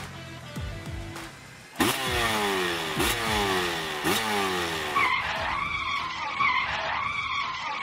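Vehicle sound effects for a road accident: a motorbike engine, then a sudden loud tyre screech of skidding about two seconds in, followed by a wavering high tone over the last three seconds.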